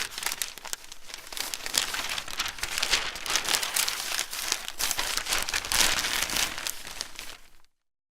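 Newspaper pages being turned and handled: a continuous papery rustle and crackle made of many small crinkles, which cuts off suddenly near the end.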